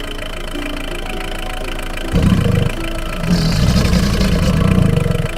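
Light background tune of short repeated notes, with two bursts of low rumbling over it: a short one about two seconds in and a longer one from about three seconds in.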